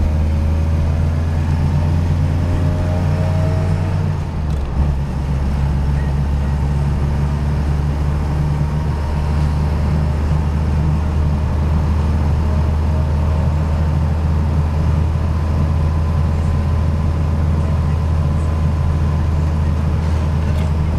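Peugeot 203's four-cylinder engine heard from inside the cabin while driving. Its pitch rises as the car accelerates, breaks off with a brief dip about four seconds in like a gear change, then settles into a steady hum at cruising speed.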